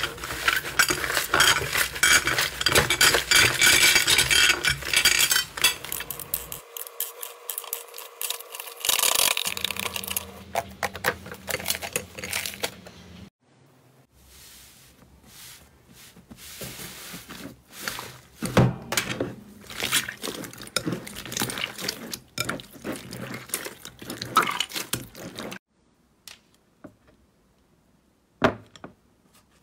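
Hands kneading and squeezing thick foamy slime, making dense sticky crackles and pops, loudest in the first half. After about thirteen seconds the sound turns to sparser, softer squishes and clicks as a finger pokes a dome of slime. It falls nearly silent near the end, apart from one sharp click.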